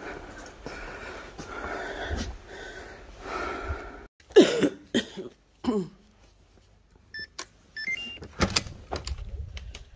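Faint rustling from handling and walking, then two or three short falling vocal sounds about four to five seconds in, the loudest part. Near the end come a few short electronic beeps from a door-access keypad as a code is entered, followed by several sharp clicks.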